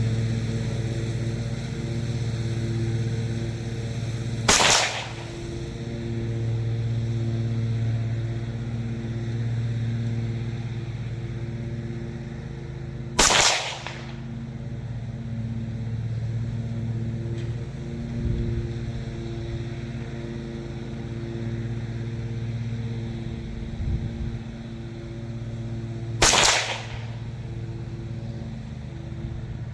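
Three single rifle shots from an AR-15 in .300 AAC Blackout firing supersonic handloads, spaced several seconds apart. A lawn mower engine drones steadily underneath.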